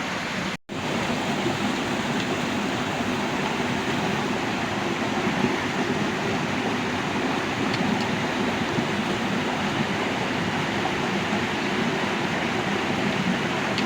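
Steady rushing noise of flowing water, cut off for a split second about half a second in.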